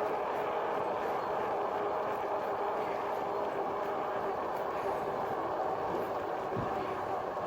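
2018 RadRover fat-tyre electric bike riding along: wind rushing over the microphone, with a steady hum of several tones from the hub motor and tyres.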